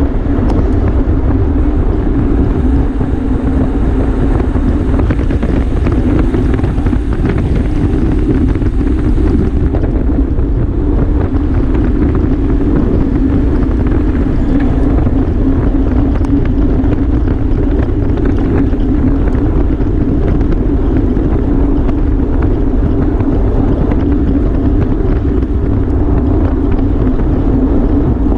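Wind rushing over the microphone of a camera moving at bike-racing speed: a loud, steady roar heaviest in the low end, with a steady hum running underneath.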